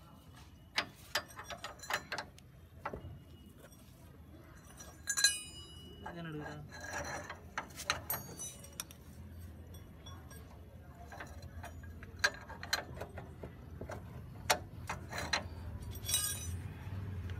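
Metal hand tools, a spanner and socket, clicking and clinking against the suspension stay bolts of a Bajaj GC 1000 three-wheeler as they are worked loose. There are irregular sharp clicks, with one ringing metal clink about five seconds in.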